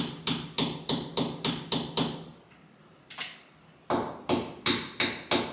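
Hammer tapping a nail into a wall: quick, even strikes about four a second, a pause of over a second with one lone tap, then another run of strikes.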